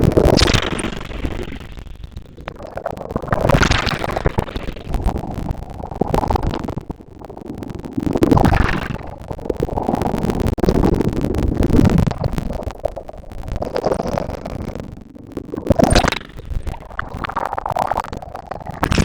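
Ocean waves breaking and washing up a beach, surging every few seconds with a low rumble under the hiss of the wash.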